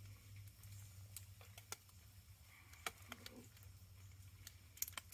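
Near silence: a faint low background hum with scattered small clicks, a few of them close together near the end.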